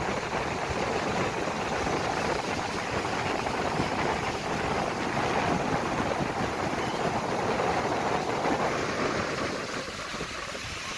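Ocean surf breaking and washing against the rocks below, a steady rushing roar mixed with wind on the microphone, easing a little near the end.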